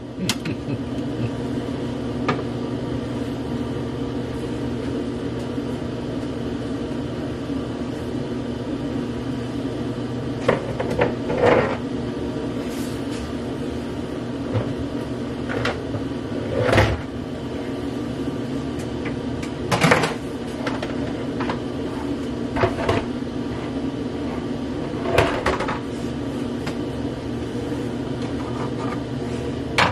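Food processor motor running steadily while shredding Brussels sprouts, the hum starting right at the beginning, with a few short knocks from the bowl along the way.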